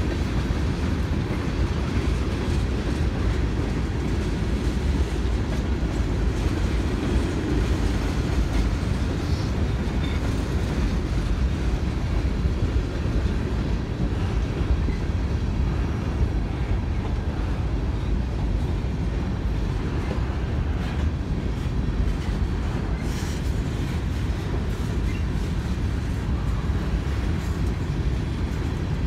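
Freight train of tank cars and covered hoppers rolling steadily past, its wheels giving a constant low rumble on the rails.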